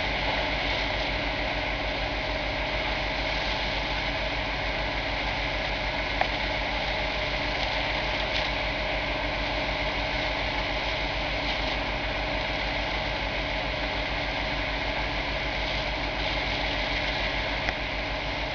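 Fire engine's engine running steadily at a constant speed, powering the pump that feeds the hose lines. One sharp tick about six seconds in.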